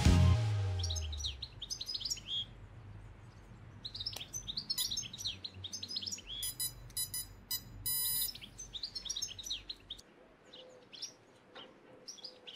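Birds chirping and twittering, many short, quick calls, fainter after about ten seconds. A music track fades out in the first second.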